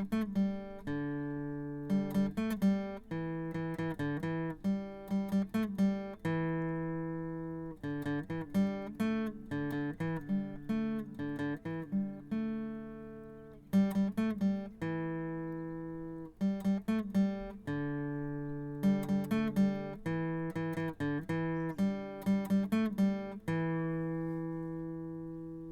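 Acoustic guitar music: plucked, picked phrases that settle on ringing chords, fading out near the end.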